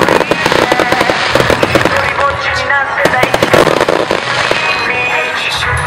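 Aerial fireworks bursting, with a dense run of rapid crackling pops.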